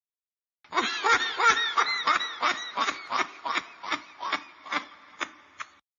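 A person laughing: a long run of short pitched "ha" pulses, about three a second, that slows and fades out, starting abruptly after a moment of dead silence.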